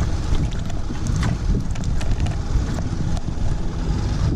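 Wind buffeting the microphone, a loud, fluttering low rumble, with a few scattered small clicks and taps.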